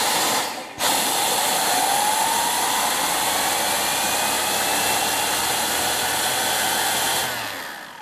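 Dyson V6 cordless vacuum running on max power, sucking air through a turbo brush whose air turbine spins the brush roll. It starts, cuts out for an instant, then runs as a loud steady rush of air with a whine that rises as the brush spins up. About seven seconds in it shuts off and winds down.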